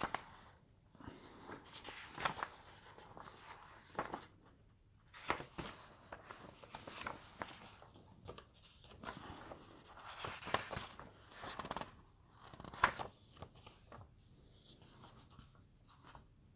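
Irregular paper rustling and handling noises, with a few sharp clicks, about a second in, two seconds in, four seconds in and near the end.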